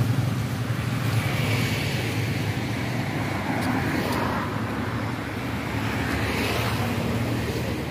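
Steady road traffic noise: a continuous hum of vehicles on a busy city road, with no single event standing out.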